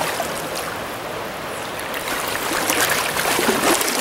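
River current running steadily. From about halfway through, a wader-clad angler wades through the water, and his legs make louder, irregular splashing and swishing.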